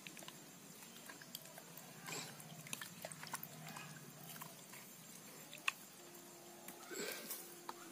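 Small fish being rinsed by hand in a plastic mug of water: faint splashing and small clicks, with one sharper click just before six seconds in. Faint animal calls sound in the background, a low pulsing sound from about two seconds in and a steady low call near the end.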